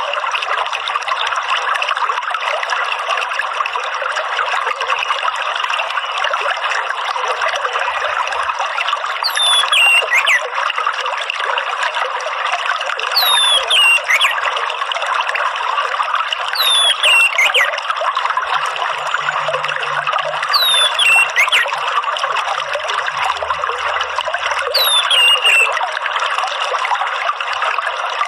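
Steady trickling, running water, with a bird's short thin whistle sliding down in pitch about every four seconds, five times.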